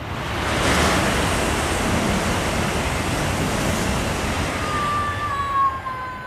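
E5-series Tōhoku Shinkansen passing at high speed: a loud, steady rushing that builds within the first second and holds. Near the end a faint high tone glides slightly downward.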